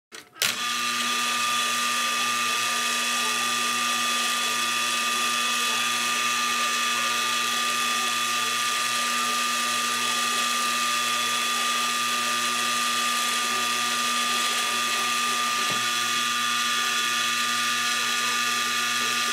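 Electric shop machine running steadily: a constant motor whine over an even hiss, starting abruptly about half a second in.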